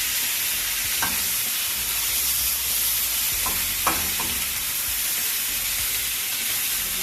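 Creamy garlic butter sauce sizzling steadily in a pan, with a few light clicks of a utensil against the pan, once about a second in and a little cluster about four seconds in.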